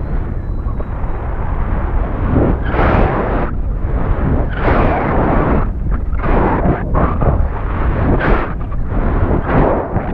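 Wind rushing over and buffeting the payload camera's microphone as the burst high-altitude balloon payload falls under its parachute, a constant low rumble rising in gusts every second or so.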